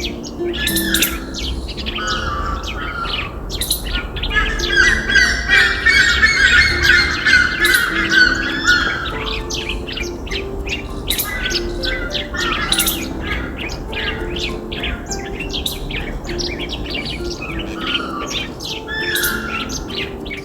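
Many birds chirping and calling, with a dense run of chattering calls from about four to nine seconds in. Soft background music with held low notes plays underneath.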